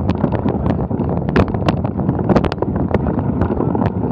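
A bicycle rolling slowly over snow and mud, heard through a bike-mounted action camera: a steady low rumble with many sharp clicks and crackles from the tyres and rattling bike.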